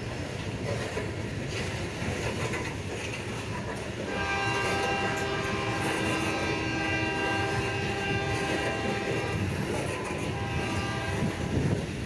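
Freight cars rolling past on the rails with a steady rumble and clatter. About four seconds in, a locomotive air horn sounds one long chord lasting about six seconds.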